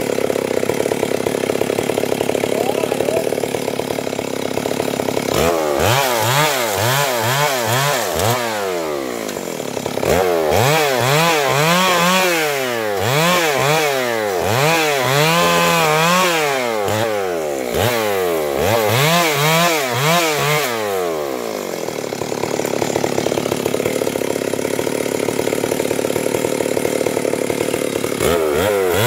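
Two-stroke chainsaw cutting through a felled manii log. The engine runs steady at first, then for about fifteen seconds its pitch swings up and down again and again, then it settles back to a steady run near the end.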